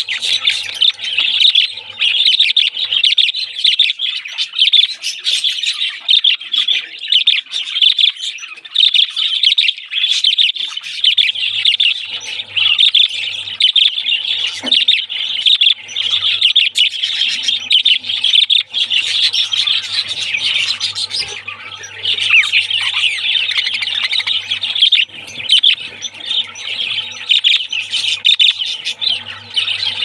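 A flock of budgerigars chattering continuously, a dense, unbroken mix of rapid chirps, warbles and squawks.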